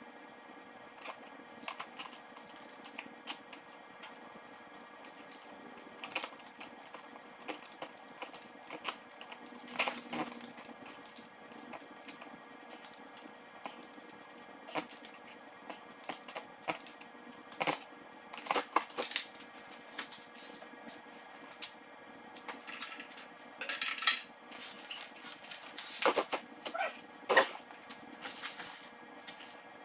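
Scattered metal clinks, taps and knocks of engine parts and hand tools being handled during engine assembly, coming more thickly in the last several seconds, over a faint steady hum.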